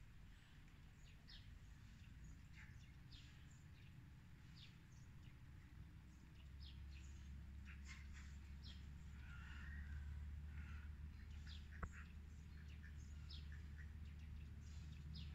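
Faint, scattered chirps of small birds over quiet outdoor ambience. A low steady rumble builds from about six seconds in, and there is a single sharp click near the end.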